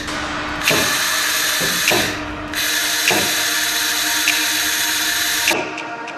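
Handheld laser cleaner ablating a weld seam, a loud crackling hiss in two long bursts with a short break between. A music track with a steady beat plays underneath.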